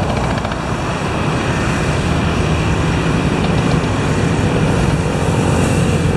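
Inboard engine of a small wooden fishing boat running steadily under way, a continuous low engine hum with water noise, growing slightly louder.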